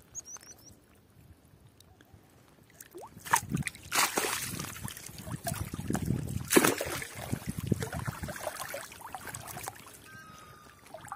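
Water sloshing, splashing and dripping as a gill net with fish caught in its mesh is hauled by hand out of the water, starting about three seconds in and dying down near the end.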